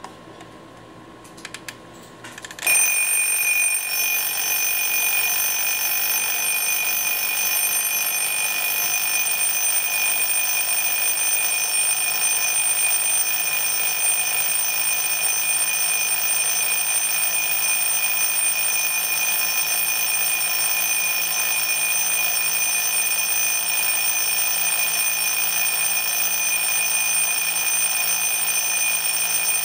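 RHYTHM 10 cm alarm clock's mechanical bell alarm going off: after a few faint clicks it starts suddenly, about three seconds in, and rings on loud and steady without pause.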